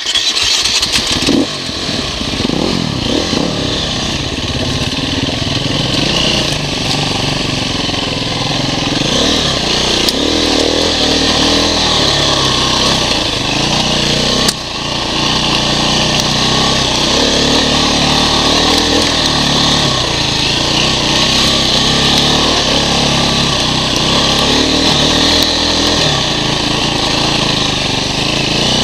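KTM dirt bike engine running at low speed on a slippery trail, its revs rising and falling as the throttle is worked, over a steady rush of noise. One sharp click about halfway through.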